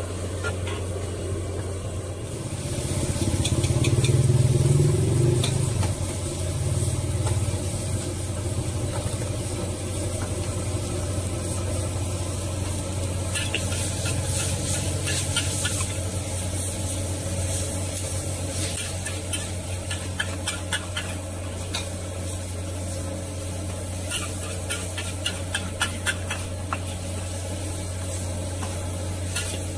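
Rice vermicelli and bean sprouts sizzling in a hot wok while a metal spatula stirs, scrapes and clanks against the pan. The sizzle swells loudest about three to six seconds in, and a steady low hum runs underneath.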